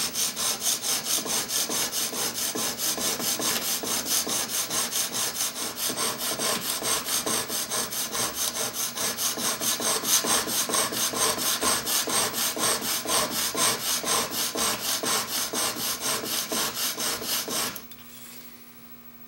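Steel chisel bevel scrubbed rapidly back and forth on a DMT diamond sharpening stone, held at a fixed angle in a General sharpening jig. It makes a steady rasping rub at about four to five strokes a second and stops suddenly near the end. The rubbing is grinding a new, clean bevel facet on a Bahco chisel on the way to raising a burr.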